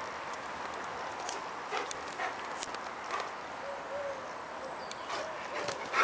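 Dogs playing on bark mulch: scattered soft taps and scuffs of paws, a few short whimpers about four and five seconds in, and a louder knock near the end, over a steady background hiss.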